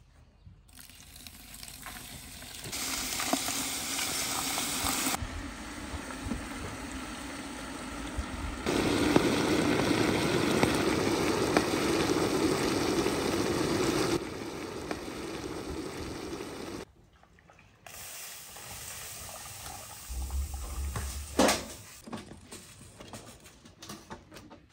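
Water poured into a plastic bucket over lumps of lime, with the milky mix then stirred with a stick, as in slaking lime for whitewash. The noise comes in several stretches, loudest about halfway through, with a brief break around two-thirds of the way and a single sharp knock soon after.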